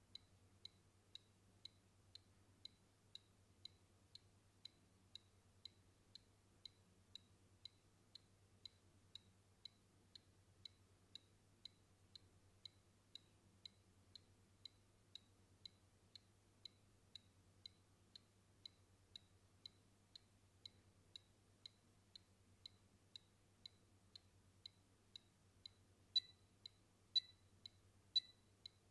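Small electronic buzzer on a breadboard timer giving short, high ticks about twice a second. For the last three ticks, about three seconds before the end, it turns much louder and slows to once a second as the timer nears its end. A faint low electrical hum runs underneath.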